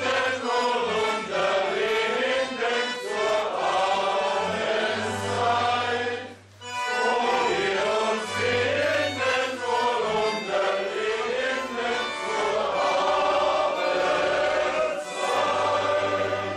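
Small folk dance band playing: double bass, fiddle and square button concertinas, with a bass line under held chords. The music breaks off briefly about six and a half seconds in and then starts again.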